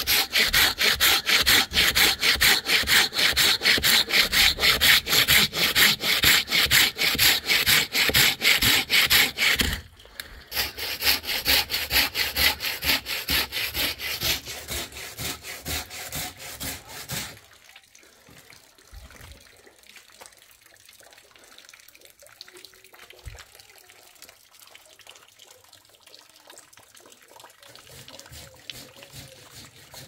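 Rhythmic back-and-forth rasping strokes, about three to four a second, in two long runs with a short break about ten seconds in; the strokes stop about seventeen seconds in, leaving faint background noise with a couple of soft knocks.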